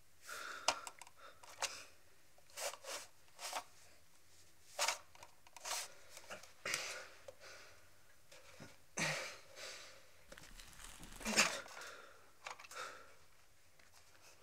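A person's ragged, uneven breathing: about a dozen short gasps and sniffs at irregular intervals, a few with a brief catch in the voice, the loudest about eleven seconds in.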